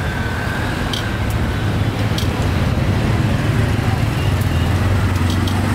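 Busy street noise: a steady low motor hum under a general din, with background voices and a few sharp clicks.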